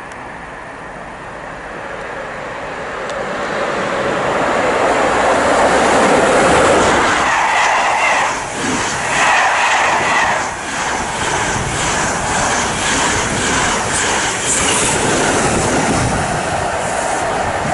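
A passenger train running past the platform, its noise swelling over the first few seconds and then holding loud, with a rhythmic clickety-clack of wheels over rail joints.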